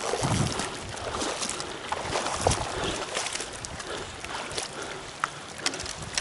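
Flowing river water with irregular small splashes and scattered ticks.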